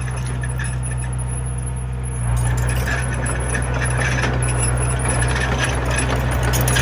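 Small Komatsu bulldozer's diesel engine running steadily, getting louder a little over two seconds in, with a light metallic clatter over it.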